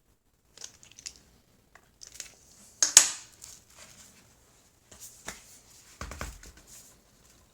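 Handling noises: rustling, crinkling and scraping with sharp clicks, the loudest a sharp crackle about three seconds in and a cluster of knocks about six seconds in.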